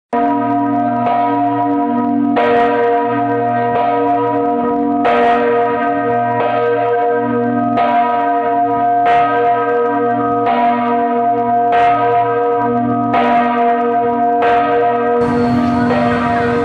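Church bell ringing, struck about once every 1.3 seconds, its tones ringing on between strikes. Near the end a hiss joins it.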